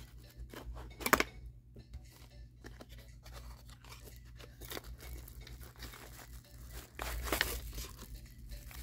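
Packaging of a small UV LED nail lamp being torn open and crinkled by hand, with a sharp click about a second in and louder rustling about seven seconds in.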